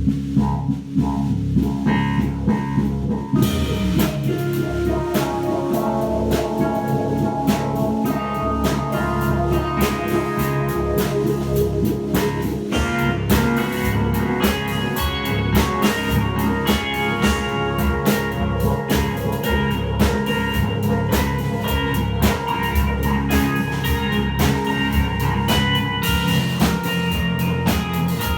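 A rock band playing, with guitar and a drum kit; the drums and cymbals come in about three and a half seconds in.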